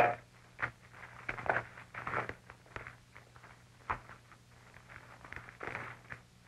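Irregular footsteps and light knocks of several miners walking out of a mine cage, over a faint steady low hum.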